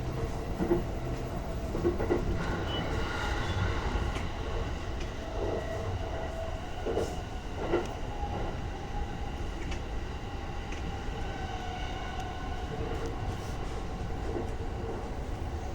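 E235-1000 series electric train running along the track, heard from inside the leading car: a steady low rumble with irregular clicks of the wheels passing over rail joints. Faint tones drift slowly in pitch.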